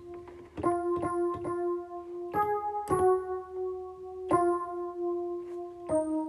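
Piano-sound keyboard playing slow held chords, each struck sharply and left to ring, with new chords coming every half second to a second and a half.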